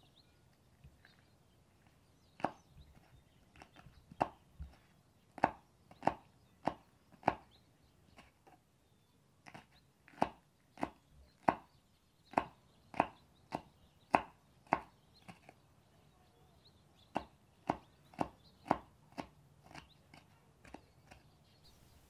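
Knife slicing a green bell pepper into strips on a wooden cutting board: sharp taps of the blade striking the board, about one to two a second, in runs broken by short pauses.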